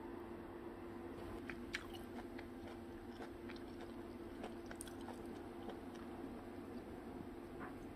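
A person chewing blanched angelica-tree shoots (dureup) dipped in red pepper sauce: faint, scattered crunching and mouth clicks over a steady low hum.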